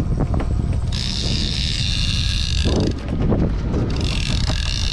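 Steady low rumble of a fishing boat at sea with wind on the microphone, joined by a bright hiss about a second in and again near the end.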